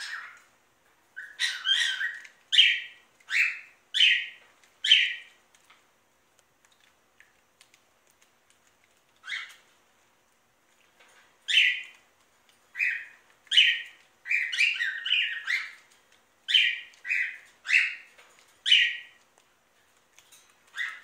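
A budgerigar giving short, loud chirps: a run of about six, a lone one midway, then a denser run of about ten near the end.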